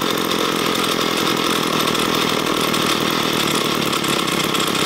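Ryobi ES30 string trimmer's small two-stroke engine idling steadily while its idle speed is being turned down with a screwdriver.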